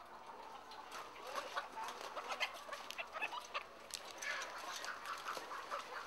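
A flock of chickens clucking, with many short, sharp calls overlapping one another.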